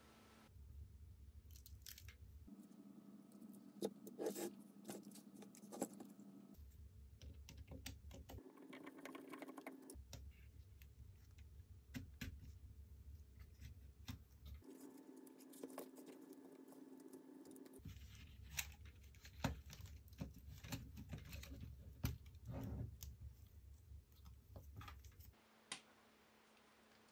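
Irregular small clicks, taps and rattles from handling a partly disassembled Nikon D90 DSLR body, its plastic and metal parts knocking as it is turned and worked on by hand. Under them a faint low hum comes and goes.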